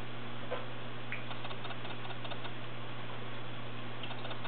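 Thin stream of tap water falling into a stainless steel sink and wire dish rack, with fast irregular ticking and splashing as a cat bats at the stream, over a steady low hum.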